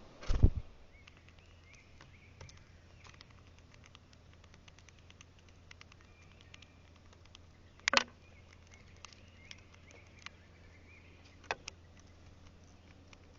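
Small birds at a feeder close to the microphone: scattered light taps and pecks, with a sharp knock just after the start and louder ones about eight and eleven seconds in, and faint chirps. A low steady hum runs underneath.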